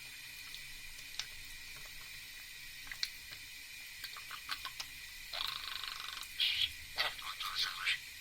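A budgerigar's mimicry: scattered soft clicks and small chirps, then about five seconds in a raspy hiss lasting about a second, a shorter one after it, and a burst of chattering chirps near the end.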